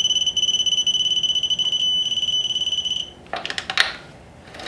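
Digital torque wrench's buzzer sounding a steady high-pitched tone while the motorcycle's rear axle nut is tightened, the signal that the set torque of 74 lb-ft has been reached. The tone stops about three seconds in and is followed by a short rattle of clicks.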